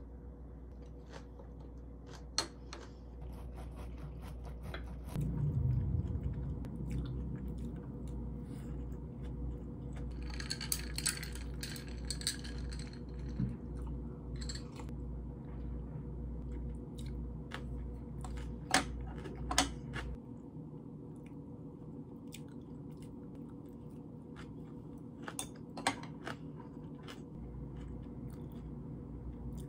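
Close-up eating sounds: chewing and crunching of fresh rice-paper spring rolls and perilla-oil buckwheat noodles, with scattered sharp clicks of chopsticks and a wooden spoon against ceramic dishes.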